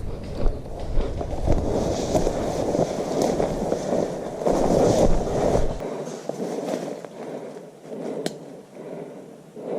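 Footsteps and rustling of gear and brush as a player moves on foot through woods, uneven and scuffing. One sharp click or snap comes about eight seconds in.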